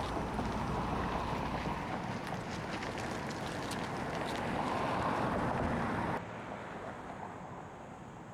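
Steady rushing background noise with a few faint clicks; it drops abruptly to a quieter hum about six seconds in.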